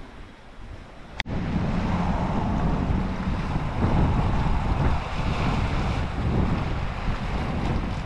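Loud rushing wind buffeting the microphone, starting abruptly with a sharp click about a second in after a quieter background.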